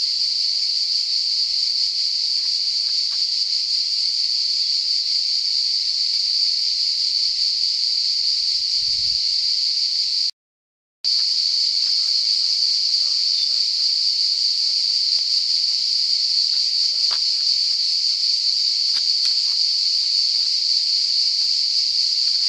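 Cicadas in chorus: a steady, high-pitched drone that drops out for under a second about halfway through. A few faint clicks come in the second half.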